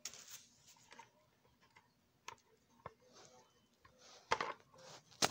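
A small packaged box handled by hand: scattered light clicks and taps with short soft rustles, the sharpest clicks coming a little past two seconds in, about three seconds in, and again past four seconds.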